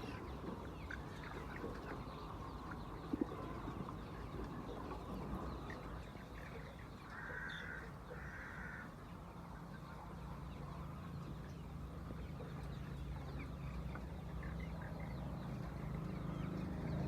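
Laying hens clucking, with two short calls about a second apart some seven seconds in. A low hum builds through the second half.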